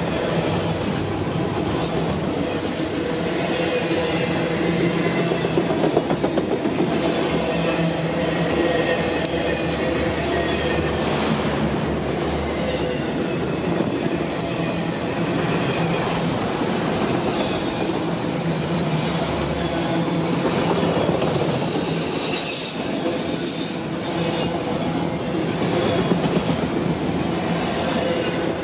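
Autorack freight cars rolling past close by: a steady rumble of steel wheels on rail, with a high wheel squeal and occasional clacks as wheels cross rail joints.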